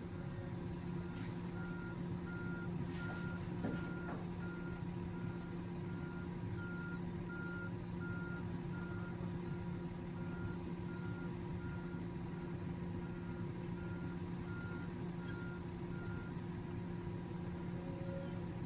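Backup alarm on heavy equipment beeping at one steady pitch, a little over once a second, over a steady diesel engine hum: the machine is reversing. The beeping stops near the end while the engine keeps running.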